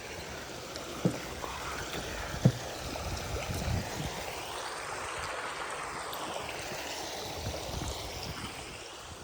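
Running water of a forest stream, a steady rush that swells and then fades near the end, with a few footfalls on the track in the first few seconds.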